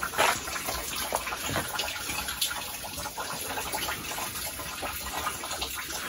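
Steady rush of running water from a small waterfall, with a few light knocks, the first and loudest just after the start.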